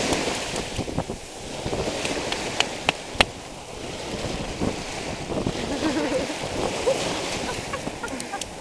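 Beach ambience: a steady wash of surf with wind buffeting the microphone. A few sharp clicks come about two and a half to three seconds in, and faint voices are heard about halfway through.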